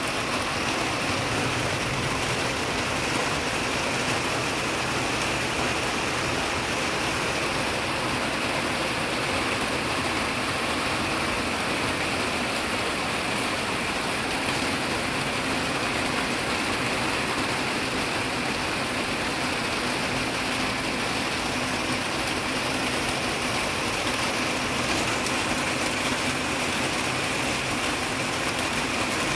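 Heavy rain falling steadily on a greenhouse's plastic roof and wall panels, an even, unbroken hiss.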